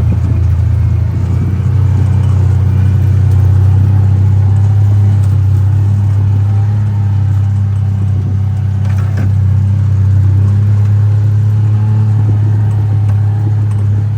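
John Deere Gator utility vehicle's engine running at a steady, even pitch as it drives, with one brief click about nine seconds in.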